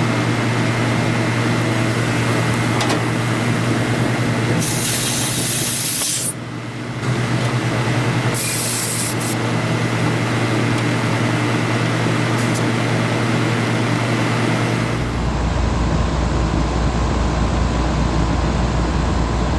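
Running package air-conditioning unit humming steadily, with two short bursts of gas hissing about five and eight seconds in, while an additive is injected into the refrigerant circuit. About fifteen seconds in, the hum drops to a lower pitch.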